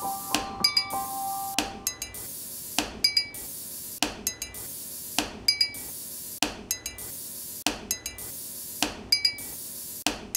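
Closing music built on a slow, even percussive beat: a knock about every 1.2 seconds, each followed by a quick run of bright, glassy clinks. A few held notes fade out about two seconds in.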